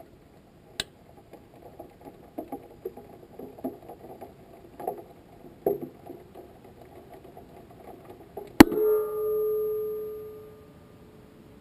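Scattered light knocks and rattles from a tumbling sounding rocket's upper stage, picked up by the GoPro mounted on its body. About eight and a half seconds in comes one sharp knock that rings on in two steady tones, fading out over about two seconds.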